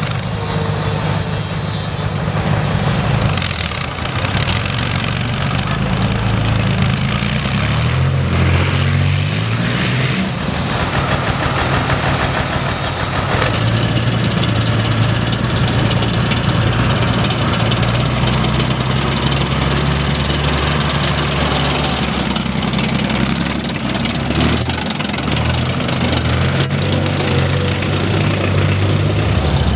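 Engines of armoured vehicles, among them BMP-2 infantry fighting vehicles, running steadily as they drive. The engine note rises and falls about eight to ten seconds in.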